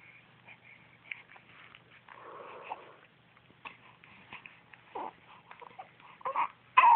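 Newborn baby fussing with small grunts and whimpers, breaking into a louder falling whimper at the very end.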